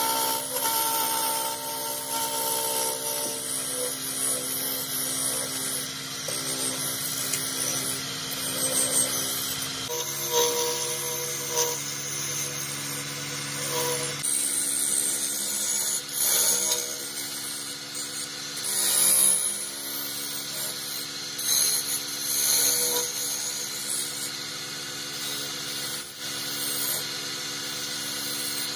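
Wood lathe running with a steady motor hum while a spinning wooden spindle is sanded by hand, a rough rubbing hiss that swells and eases as the hands press on the wood.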